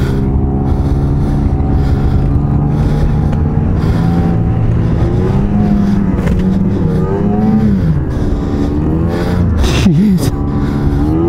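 Ski-Doo snowmobile engine at high revs as the sled ploughs through deep powder snow. The engine note wavers with the throttle and dips twice near the end.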